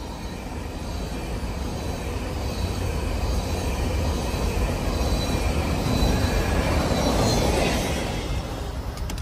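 Freight cars, covered hoppers and boxcars, rolling past on steel rails with a steady rumble of wheels. The sound swells as the last cars pass close, then drops away near the end once the train has gone by.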